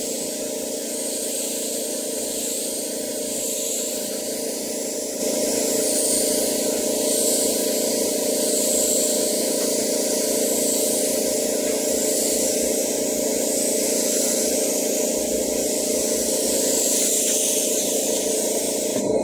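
Compressed-air paint spray gun hissing steadily as it sprays a final coat of wood finish, the hiss swelling and easing, over a steady mechanical hum. It gets louder about five seconds in.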